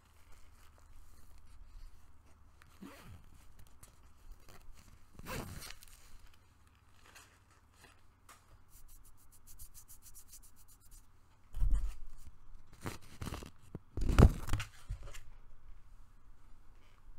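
Close-up rummaging sounds of someone searching a backpack for a first-aid kit: soft rustling and rubbing, a zipper pulled in quick even ticks about halfway through, and louder rubbing with bumps against the microphone near the end.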